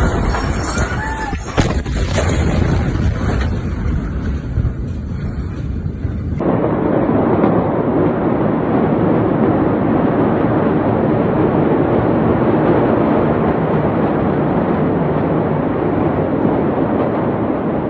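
Phone-recorded sound of the Beirut port explosion: noisy rumbling with a few sharp knocks for the first six seconds, then, after an abrupt cut, a steady loud roar that does not let up.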